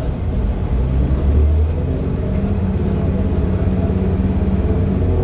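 Inside a moving 2012 New Flyer D40LFR diesel city bus: a steady low rumble from its Cummins ISL9 engine and drivetrain, mixed with road and tyre noise.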